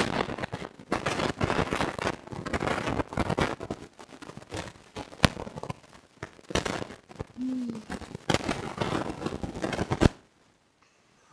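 Irregular crackling and rustling handling noise close to the microphone, as sugar-coated strawberry laces are held and eaten, stopping abruptly about ten seconds in.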